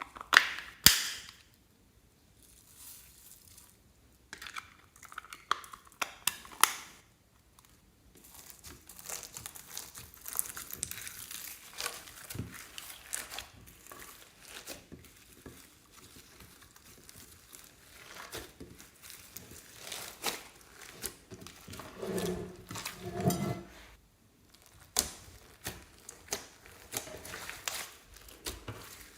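Crinkling and crackling of plastic piping bags and slime being handled, with a few sharp loud snaps in the first seconds and irregular rustling after. About 22 seconds in comes a fuller, lower stretch.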